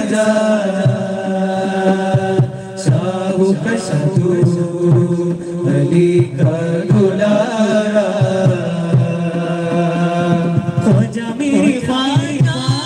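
A group of male voices singing together into microphones in long, held notes that shift in pitch every second or so.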